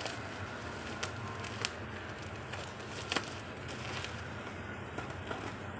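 Plastic bubble wrap crinkling and crackling as it is cut with scissors and pulled back off a cardboard box, with a few sharp clicks.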